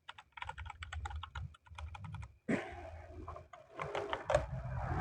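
Keys on a Vortex VX8 Pro mechanical keyboard with brown tactile switches being pressed in quick, irregular clicks, with a louder knock about halfway through.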